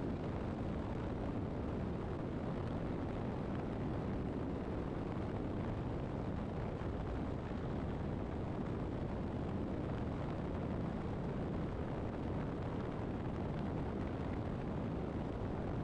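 Steady rush of wind and engine drone from a motorcycle cruising at constant highway speed, picked up by a camera behind its fairing. The sound stays even throughout, with no gear changes or revving.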